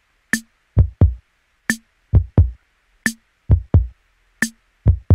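Music: a slow, bare drum-machine beat of deep kick drums, often struck in pairs, with a sharp snare hit about every second and a half.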